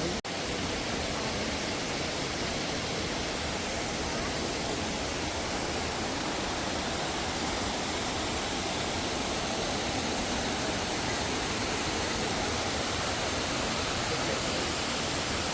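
Waterfall's water pouring, a steady, even rush, with a brief dropout just after the start.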